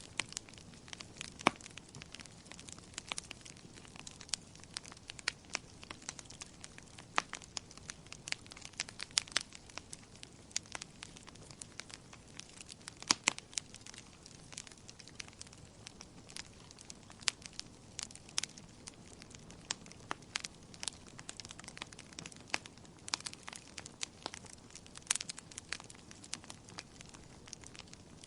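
Wood fire crackling in a fireplace: irregular sharp pops and snaps, several a second, over a soft steady hiss of burning.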